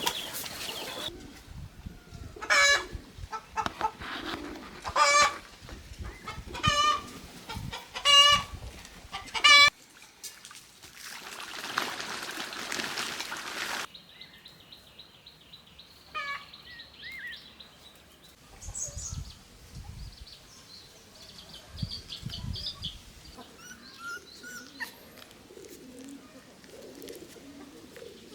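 Chickens calling: a run of loud, short clucking calls about once a second for the first ten seconds. A few seconds of rushing noise follow, then fainter, scattered bird calls.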